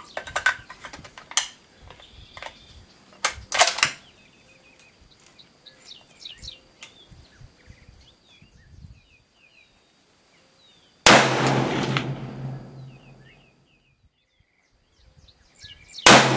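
Two shots from a Remington 700 bolt-action rifle in .308 Winchester, about 11 seconds in and again near the end. Each is a sudden crack followed by a rumble that dies away over a couple of seconds. Before them come a few sharp clicks and clacks from handling at the bench, with birds chirping faintly.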